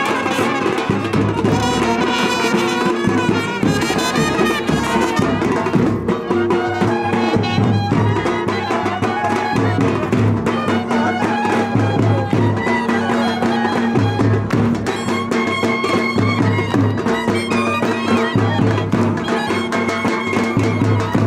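Instrumental music led by brass over a steady drum beat.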